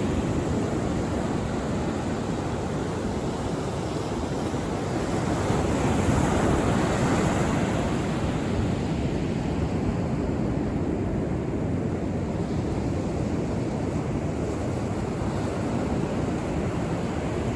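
Sea waves breaking on a beach: a continuous rushing of surf, swelling a little louder about six to seven seconds in.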